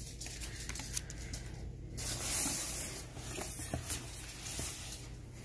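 Cardboard box flaps being pulled open, the corrugated cardboard rubbing and scraping, with a few light knocks; the longest scrape comes about two seconds in.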